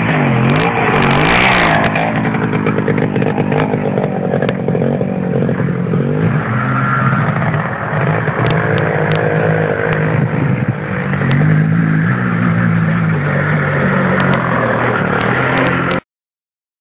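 Off-road engine of a quad or dirt bike revving up and down while riding, close and loud, with scattered knocks from the rough ground. It cuts off suddenly near the end.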